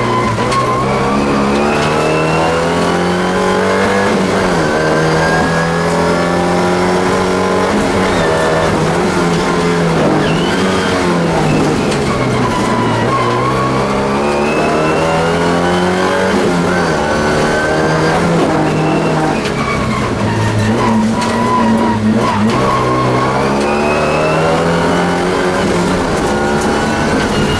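Alfa Romeo 75 race car's engine heard from inside the cabin, revving hard and dropping back again and again as the car accelerates and brakes between corners. The pitch climbs steadily, then falls sharply several times.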